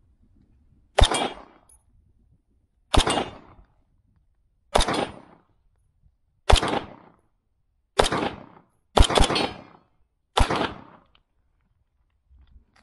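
Seven gunshots fired one at a time at a steady pace, about one to two seconds apart, each with a short echoing tail.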